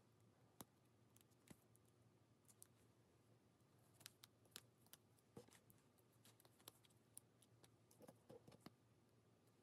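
Faint, scattered clicks and ticks of jewelry pliers working fine gold-fill wire around a small faceted stone, coming irregularly in small clusters.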